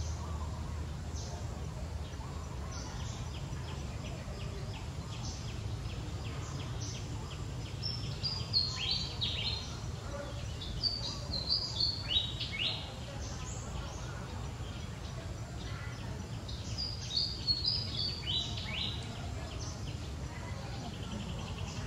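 Birds chirping in outdoor ambience over a steady low rumble: two runs of quick, high, falling chirps, the first about eight seconds in and the second about seventeen seconds in.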